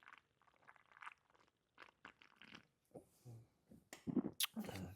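A man swallowing a swig of beer, with faint gulps and mouth noises close to a clip-on microphone, growing louder about four seconds in.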